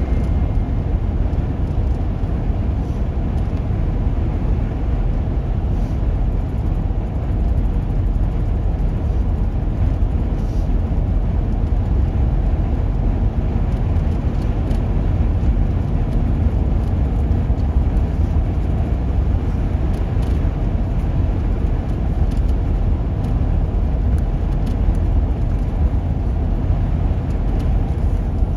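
Steady low rumble of road and engine noise inside a vehicle cruising on a highway, heard from the cabin.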